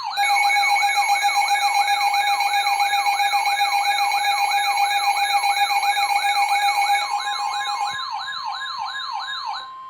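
An emergency alert siren tone, a fast repeating falling wail several times a second, over a steady alert tone. About seven seconds in, the steady tone gives way to a single higher steady tone, like the NOAA Weather Radio alert tone that comes before a warning broadcast.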